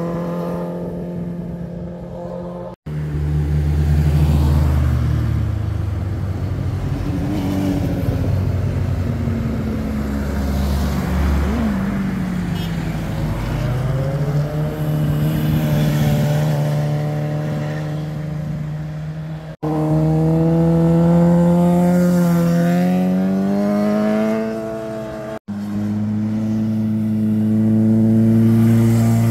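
Sport motorcycle engines taking a hairpin bend one after another, revving up and down through the gears as they lean through and accelerate out, with a car passing among them. The sound breaks off abruptly three times between passes.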